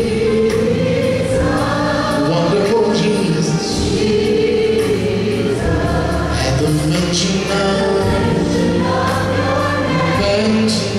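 Large gospel choir singing, with a male soloist on a microphone leading over them, loud and continuous.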